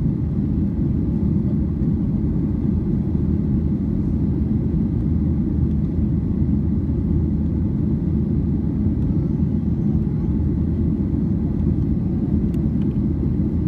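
Steady low rumble of a Boeing 737-800's CFM56-7 jet engines and airflow, heard inside the cabin.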